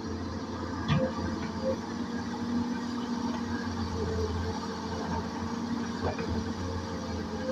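CAT E200B excavator's diesel engine running steadily with a low hum, with two sharp knocks, about a second in and again near six seconds.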